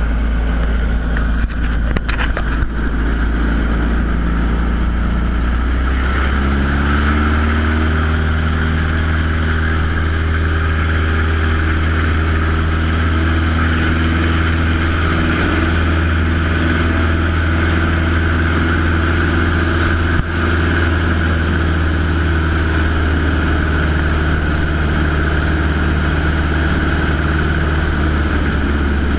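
Bush plane engine and propeller running at high power, heard from inside the cabin. The engine's pitch rises about six seconds in as power comes up for the takeoff run, then holds steady through the lift-off and climb.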